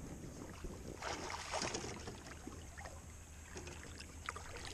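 Faint water sloshing and splashing beside a kayak, with scattered light clicks and knocks of handling, a little louder between one and two seconds in.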